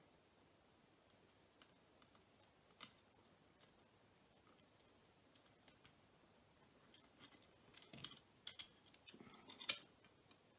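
Near silence with faint, scattered clicks and taps of a small screwdriver working on the plastic bogie and chassis parts of a model locomotive, with a short run of sharper clicks near the end.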